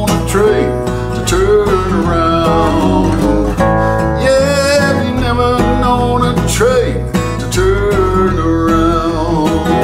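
Steel-string acoustic guitar strummed in steady chords, with a man's voice singing long, wavering held notes over it.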